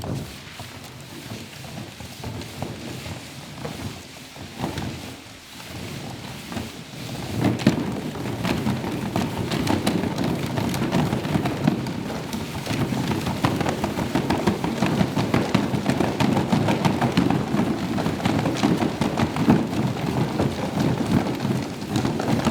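A dense, crackling, rain-like noise, full of fine patters over a low rumble, that swells much louder about seven seconds in and stays loud.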